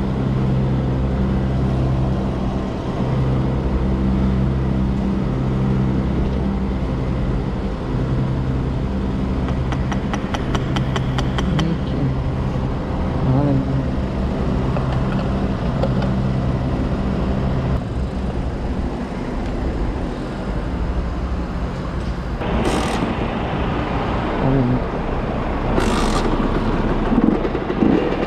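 50cc motorcycle engine running, its low note dropping out and coming back, over road noise. A short run of rapid clicks comes about a third of the way in, and two brief loud rushes of noise near the end.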